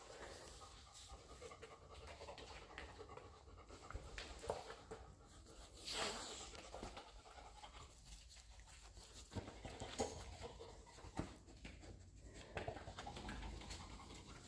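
A dog panting and sniffing while it searches for a scent, with scattered faint ticks and knocks and one louder, brief rushing burst about six seconds in.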